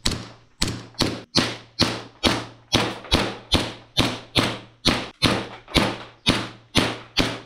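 G&G GPM1911 gas blowback airsoft pistol firing shot after shot at a steady pace of about two a second, each shot a sharp report from the gas-driven slide cycling, dying away quickly.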